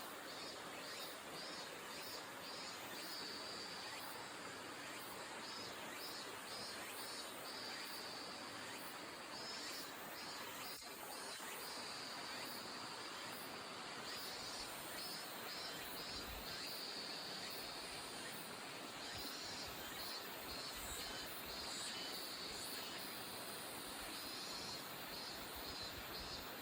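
An insect singing high and shrill in repeating phrases: quick runs of pulses alternating with longer steady trills. Under it runs a steady outdoor hiss.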